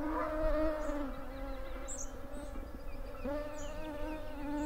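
Mosquitoes buzzing in flight: several overlapping whining tones that waver in pitch, with one swooping close past about three seconds in.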